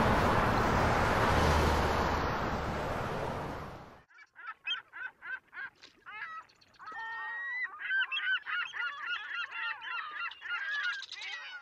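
A loud steady rush of noise that cuts off abruptly about four seconds in, followed by a flock of birds giving many overlapping, rapid honking calls that grow busier towards the end.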